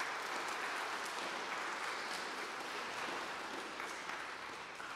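A congregation of schoolchildren applauding in a church, beginning all at once, holding steady, then thinning toward the end.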